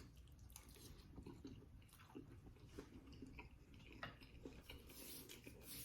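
Faint chewing with small scattered mouth clicks.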